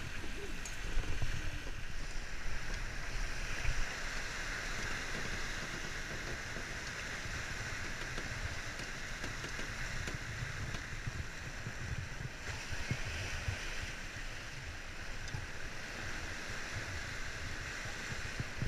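Steady rush and hiss of water streaming along a sailing yacht's hull as it races under sail, with wind buffeting the microphone in an uneven low rumble.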